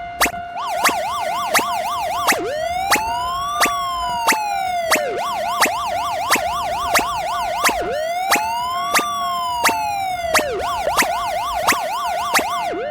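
Railroad crossing alarm ringing steadily at about one and a half strokes a second, with an electronic siren sound effect over it that switches between a fast yelp and a slow rising and falling wail, twice each. The siren stops just before the end while the crossing alarm keeps ringing.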